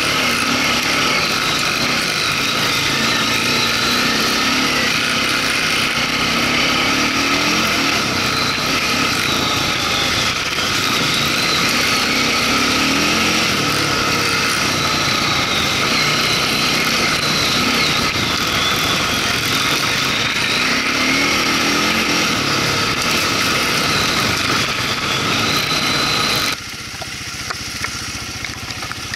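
Quad (ATV) engine running under way along a rough dirt trail, its pitch rising and falling with the throttle. Near the end the sound cuts abruptly to a quieter, steadier engine.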